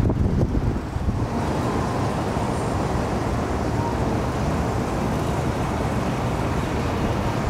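Steady low rumble of construction-site machinery engines running.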